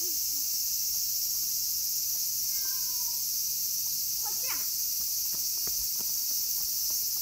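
Steady high buzz of a summer insect chorus, with a stray cat meowing once, faint and short, about four and a half seconds in, and a few light clicks after it.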